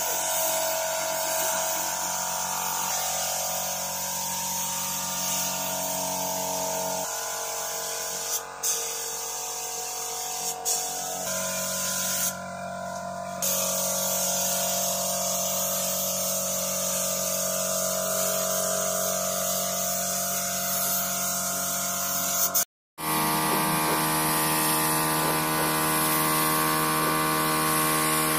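Gravity-feed paint spray gun hissing steadily with compressed air as paint is sprayed onto a truck's body panels. The spray stops briefly once partway through.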